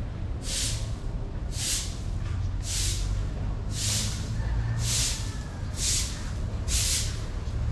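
Broom sweeping a concrete floor: a brushing swish repeated about once a second, over a steady low rumble.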